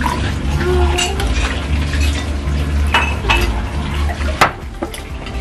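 Metal spoon and fork clinking against a glass bowl while stirring and lifting thick lomi noodle soup, with a few sharp clinks, the loudest about four seconds in.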